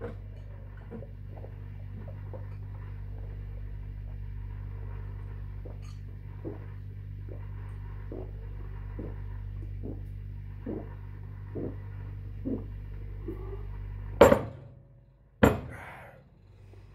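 A mug of beer being chugged in one go: rhythmic gulps a little faster than one a second, over a steady low drone that stops when the drinking ends. Near the end come two loud knocks about a second apart as the glass beer mug is set down on the table.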